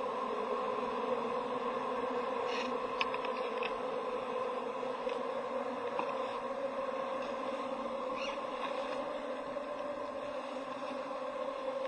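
A steady droning hum, with a few faint clicks and taps about three seconds in and again around six and eight seconds.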